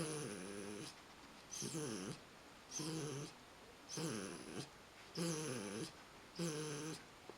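American pit bull terrier snoring loudly in its sleep: six rhythmic, rumbling snores, about one every second or so, each with a breathy hiss.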